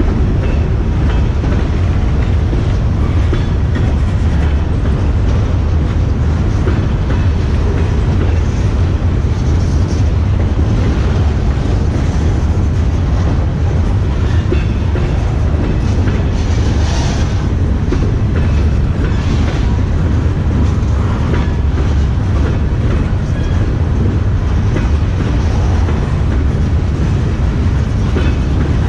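Freight train of covered steel-coil cars rolling past: a steady low rumble of wheels on rail, with scattered clicks of the wheels over rail joints.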